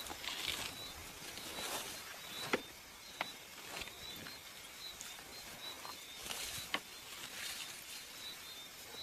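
Night-time outdoor ambience: an insect chirping steadily at a high pitch, a few times a second, over faint rustling. A few sharp snaps come through, one around two and a half seconds in, another just after three seconds, and one near seven seconds.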